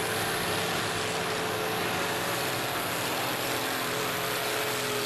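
Ford TW-20 pulling tractor's diesel engine running hard at high revs under load, a loud, steady drone that holds its pitch.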